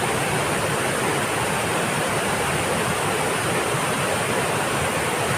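Oliyappara waterfall rushing, a steady, even roar of falling water with no breaks.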